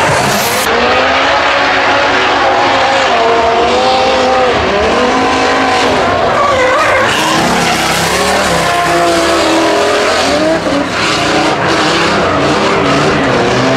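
Pro drift car engines revving hard, their pitch swinging up and down as the throttle is worked, over continuous tire squeal from the sliding tires.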